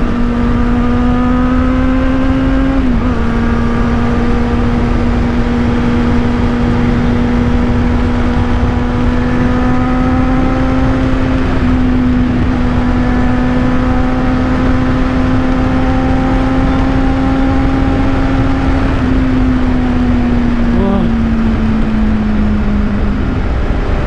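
Kawasaki Z800 inline-four with an Akrapovic exhaust, held at a steady high engine speed while riding fast, under heavy wind rush. The engine note dips briefly twice and eases down slowly near the end as the throttle comes off.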